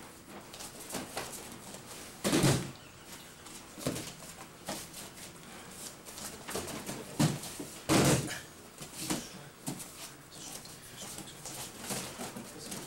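Bodies thudding and slapping onto padded mats as aikido partners are thrown and take breakfalls. The loudest impacts come about two seconds in and again about eight seconds in, with lighter thumps and shuffling in between.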